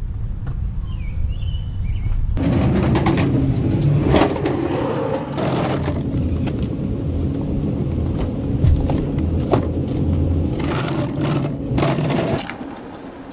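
Knocks, scrapes and rumbling as a wooden work table is pushed up to an SUV's open cargo area and a large cardboard grill box is slid out onto it; a bird chirps faintly now and then.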